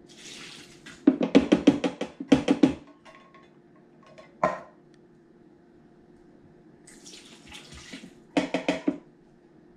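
Canned jack mackerel sliding and splashing out of a metal tin into a Styrofoam cooler, followed by a quick run of sharp, ringing knocks as the can is banged to shake the fish loose. The pouring and knocking happen again with a second can near the end.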